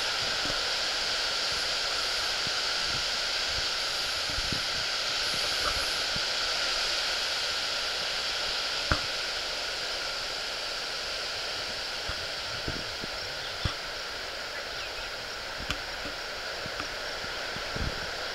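Steady, even hiss of open-meadow outdoor ambience, with a few faint taps, the sharpest about nine seconds in.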